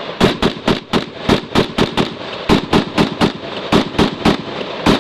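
AR-15/M4-type rifles firing a fast string of semi-automatic shots, about four a second, unevenly spaced.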